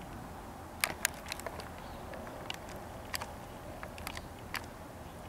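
Irregular small clicks and taps from fingers handling a handheld camcorder while it holds a close zoom, over a faint steady background hiss.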